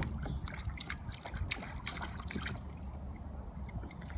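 Small, irregular splashes and trickles of water as toddlers' hands dabble and stir the water in a plastic toy water table.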